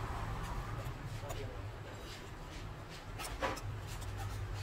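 Small repair tools scratching and clicking against phone parts, with a stronger scrape about three and a half seconds in, over a low steady hum.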